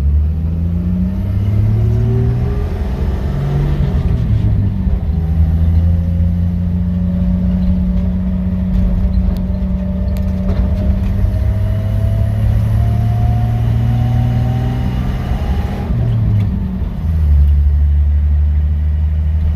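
Chevrolet 235 Blue Flame inline-six engine pulling the car down the road: the revs rise in short climbs through the first few seconds, then hold a steady, slowly rising drone while cruising. About 16 seconds in the pitch drops and settles at a lower, steady note.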